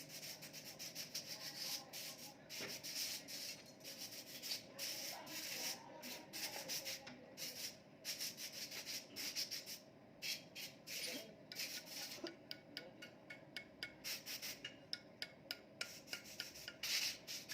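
Metal hand tools working on engine parts during assembly: quick, irregular scraping and clicking strokes, with a steadier run of clicks in the later part.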